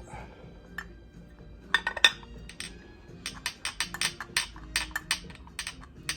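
Sharp metallic clicks and clinks from hand tools on metal during engine top-end assembly: a few, then a steady run of about four clicks a second. Faint background music underneath.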